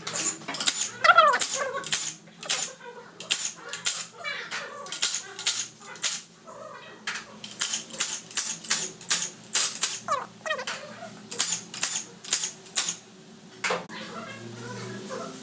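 Cordless driver undoing the bolts of a Renault JF017 gearbox's valve-body cover: many sharp metallic clicks and taps, with the driver's motor spinning briefly about a second in and again about ten seconds in.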